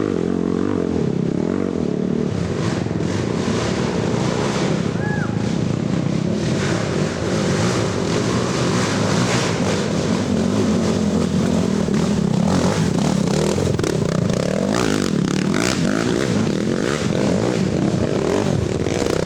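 Racing ATV engines running hard and revving, their pitch rising and falling, with scattered clattering and scraping.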